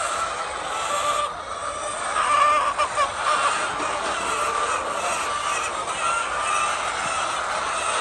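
A large flock of domestic laying hens clucking and calling all together, a steady dense chorus of many overlapping voices.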